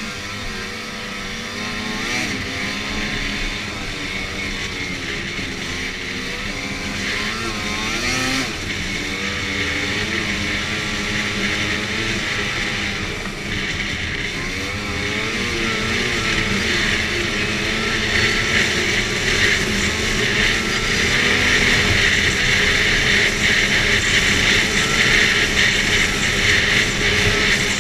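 Arctic Cat F8 snowmobile's two-stroke twin engine running while riding, revs rising and falling, growing louder in the second half as it picks up speed.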